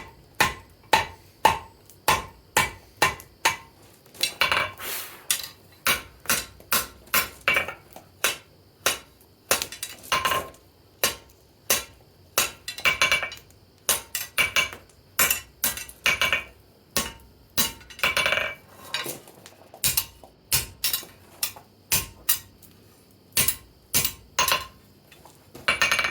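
Blacksmith's hand hammer striking steel on an anvil while forging, about two blows a second in runs with short pauses, each blow ringing briefly.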